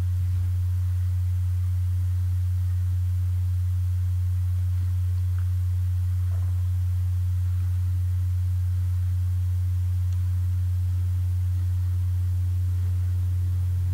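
A steady low-pitched hum with no change in level or pitch, and nothing else of note.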